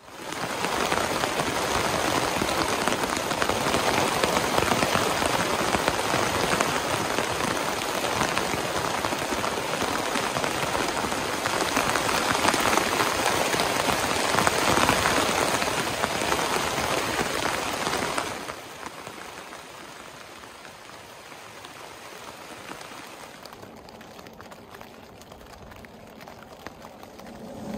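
Heavy rain pouring onto a tent, heard from inside. It falls off suddenly about two-thirds through to much quieter, lighter rain.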